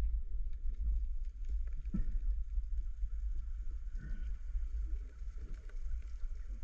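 Muffled low rumble of water moving around an underwater camera housing as a diver swims, with a few soft knocks.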